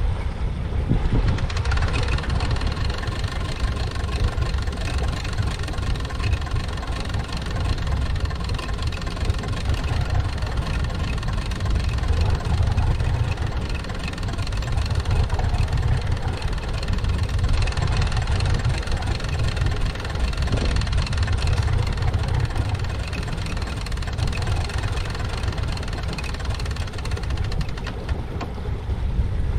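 Boat engine running steadily at slow trolling speed, a low drone with a faint steady whine above it.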